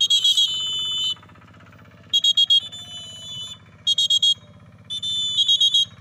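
Plastic pea whistle blown in four loud blasts, a long one, two short trilling ones and another long one, a recall signal to a parrot in free-flight training.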